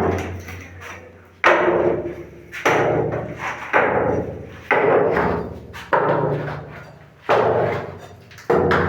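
Heavy hammer blows striking the tank's concrete cover to break it open, about seven strikes roughly one a second, each leaving a short ringing decay.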